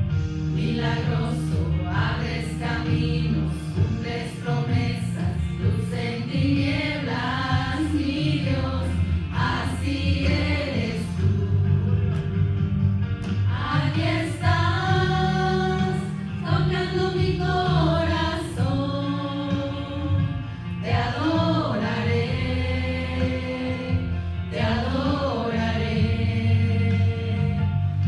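A group of women singing a worship song together into microphones, amplified through a PA, over a steady low accompaniment.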